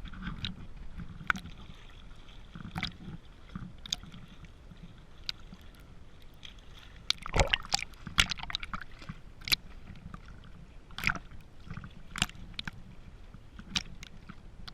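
Scattered sharp clicks and knocks at irregular intervals, over a faint sloshing of lake water.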